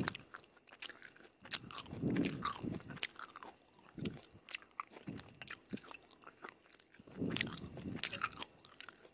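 Close-mouthed eating sounds of stir-fried yellow noodles in sauce: slurping noodles in, chewing and wet mouth clicks. The sounds come in louder stretches about two seconds in and again around seven seconds in.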